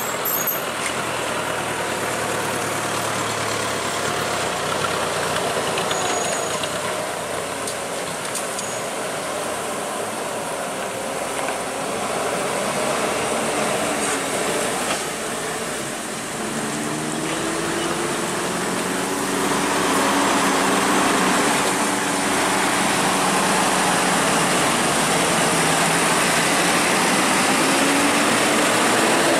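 Large diesel coach engine labouring up a steep, rough unpaved climb, its note wavering up and down in pitch, with the broad noise of tyres on loose gravel. In the last third a lower engine note rises and the sound gets louder.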